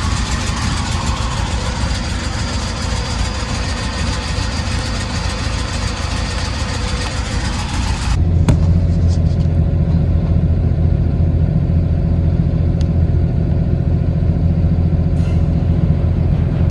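Jeep Cherokee 4.0-liter straight-six idling with the rough idle it developed after its heater core and evaporator were replaced. The owner suspects a vacuum leak that a shop's smoke test missed. About halfway through, the sound cuts abruptly to a deeper, steadier rumble.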